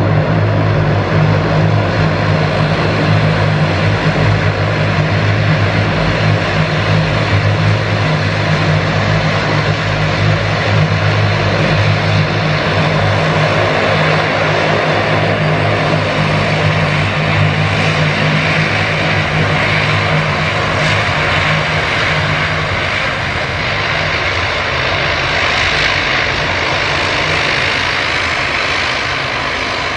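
Propeller aircraft engines running: a steady, loud drone that drops away about 23 seconds in, while a higher rushing sound grows toward the end.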